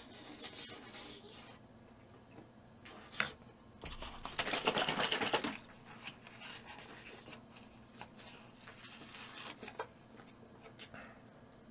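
Close-miked eating and handling sounds: chewing, then a paper drink carton being handled and drunk from. The loudest part is a noisy rustle from about four to five and a half seconds, with a sharp tick shortly before it.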